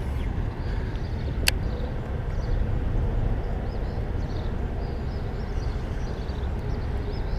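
Steady low rumble of highway traffic, with a single sharp click about one and a half seconds in and faint high chirps over it.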